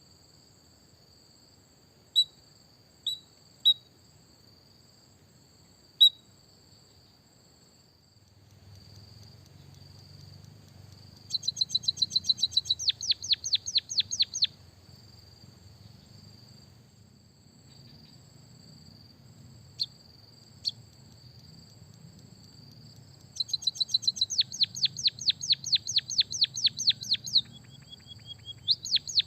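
Songbird from a munia/canary training recording: a few single sharp chirps, then two runs of rapid repeated high notes a couple of seconds each, over a steady high-pitched drone.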